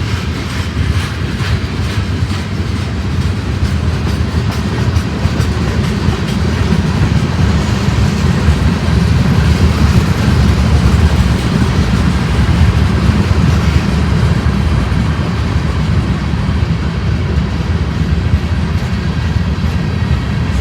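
Freight train rolling past, with a steady heavy rumble and wheels clattering over the rails.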